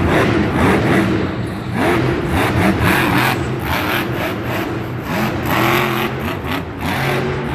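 Monster truck's supercharged V8 revving up and down again and again as the truck drives and turns on the dirt arena floor.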